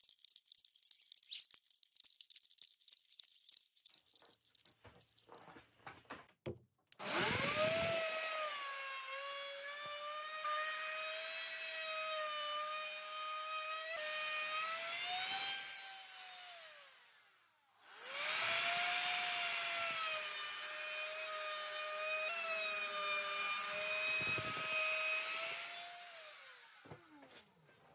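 Handheld plunge router with a bearing-guided profile bit routing the edge of an oak board, twice: each time the motor's high whine rises as it spins up, holds steady with a hiss of cutting through the wood, then falls away as it spins down. For the first few seconds there is only irregular clicking and rubbing.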